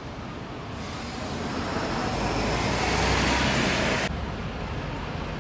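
Street traffic noise: the tyre and engine sound of a vehicle passing close swells over a few seconds, then cuts off abruptly about four seconds in.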